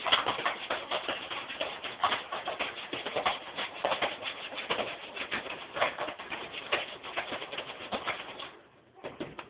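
Popcorn popping: a dense, irregular crackle of kernels bursting that dies away near the end, leaving a couple of last pops.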